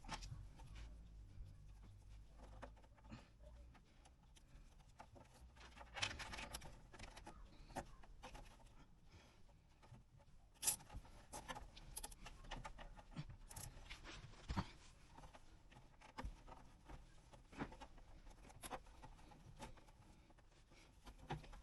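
Faint clicks and rustles of hands fitting a cable tie and a piece of fuel line around a motorcycle's front fork to hold a braided brake line, with a few sharper clicks from about six seconds in.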